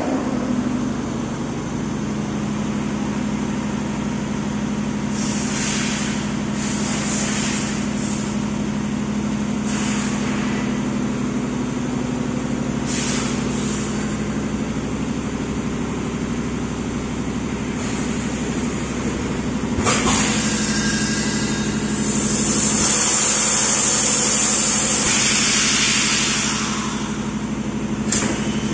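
Two-cavity semi-automatic PET blow moulding machine running: a steady hum under several short hisses of compressed air, a sharp clack about twenty seconds in, then a loud hiss of air lasting about four seconds.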